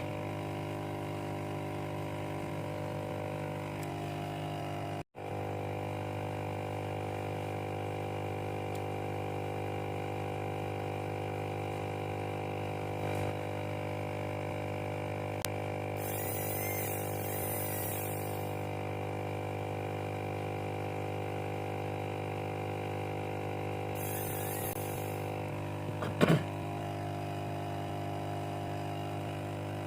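Steady electric hum. Two short bursts of hiss come in the middle, and a brief loud knock sounds near the end.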